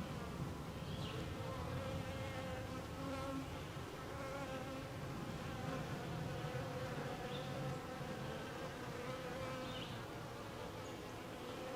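Honeybees buzzing around an open hive: a steady drone of many bees with a slightly wavering pitch.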